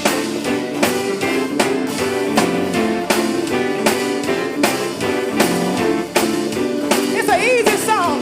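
Live band playing gospel praise music, with drums keeping a steady beat under sustained chords, and a voice sliding through a melodic run near the end.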